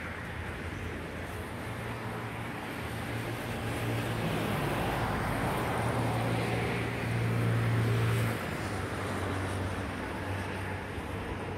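Steady low engine rumble with a hum, growing louder over several seconds and dropping back abruptly about eight seconds in.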